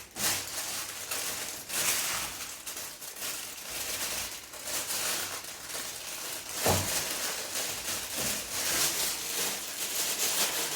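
Paper rustling and crinkling as an instruction booklet is handled and its pages turned, with a sharper rustle about two-thirds of the way through.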